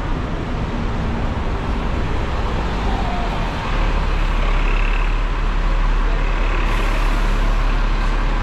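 Street traffic with a double-decker bus running close by; its low engine rumble grows louder about halfway through, and a hiss comes in near the end.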